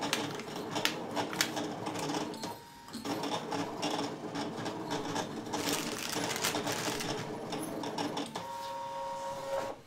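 Brother ScanNCut electronic cutting machine cutting out shapes: a steady motor whir with many small clicks as the blade carriage and mat move. It changes to a higher steady whine near the end, then stops suddenly.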